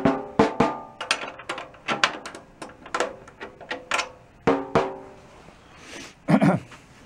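Head of a 1938 Leedy Broadway Parallel snare drum tapped repeatedly, about twice a second, while it is being tuned up by ear; each tap rings briefly with a clear pitch. The tapping stops about five seconds in.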